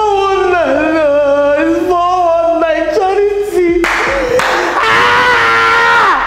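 A woman wailing loudly in distress, in long, wavering, sung-like cries, with a breathy gasp about four seconds in before one long held cry.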